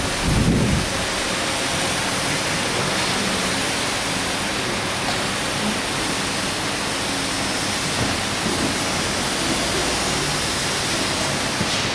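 Electric welding arc hissing and crackling steadily.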